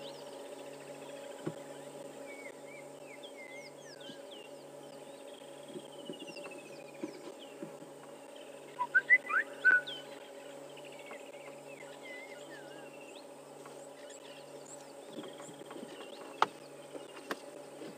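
Wild birds calling in the bush: scattered chirps, whistles and falling trills, with a louder burst of calls about halfway through, over a steady low hum. A single sharp click sounds near the end.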